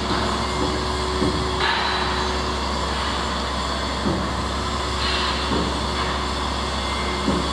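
Large mobile crane's diesel engine running steadily under load while lifting a 75-tonne work boat, with a hiss starting about one and a half seconds in and another about five seconds in, and a few faint knocks.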